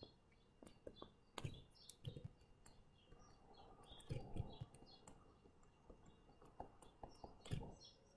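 Near silence with faint, scattered taps and clicks of a stylus writing on a tablet screen, and faint short high chirps in the background.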